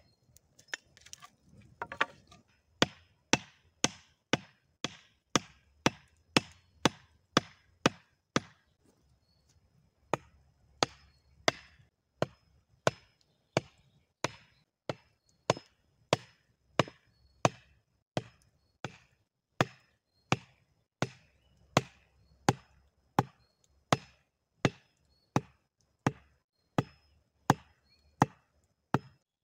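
A hatchet striking wood over and over: a steady series of sharp knocks, about three every two seconds, with a short pause about a third of the way through.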